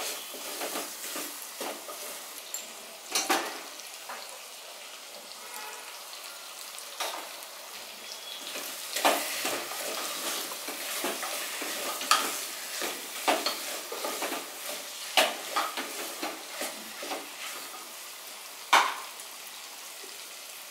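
Vegetables sizzling as they fry in spices in an aluminium pressure cooker, stirred with a wooden spatula that knocks and scrapes against the pot at irregular moments; the sharpest knock comes near the end.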